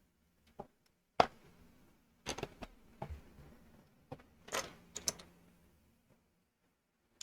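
LEGO plastic pieces being handled and pressed together: a series of sharp irregular clicks and clatters, the loudest about a second in.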